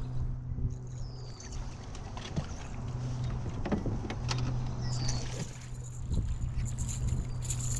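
Two short, falling, high whines of a fishing reel's spool paying out line on casts, one about a second in and one about five seconds in, over a steady low hum that stops near the end, with a few light knocks.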